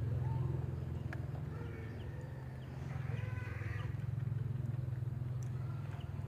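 A steady low motor hum, with chickens clucking faintly over it.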